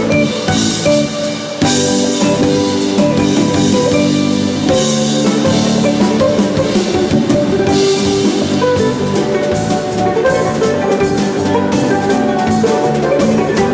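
Instrumental music from a live band: a drum kit with cymbals keeping a steady beat under melodic instruments.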